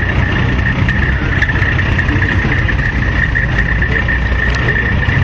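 Truck engine idling with a steady low rumble.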